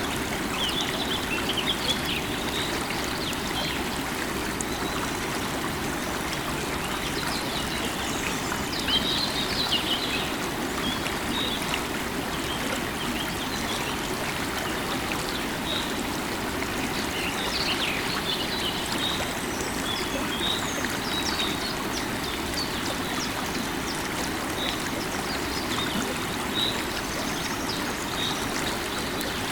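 Running river water, a steady rush, with small birds chirping and twittering over it.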